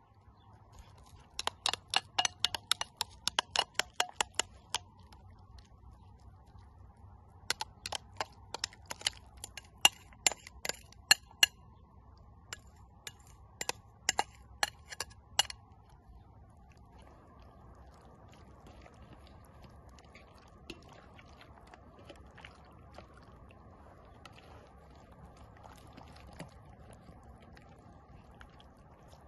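A spoon clinking against a glass bowl in three quick runs of ticks while marinade is stirred and scooped out. In the second half, only soft, faint squishing of hands rubbing the marinade into raw whole herring.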